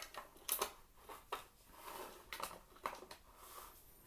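Light plastic clicks and clacks, a dozen or so at irregular spacing, from small speed-cube parts and accessories being handled, with a soft rustle about halfway through.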